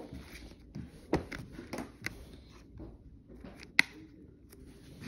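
A plastic Blu-ray case handled in the hands: scattered soft knocks and rustles, with one sharp click about four seconds in.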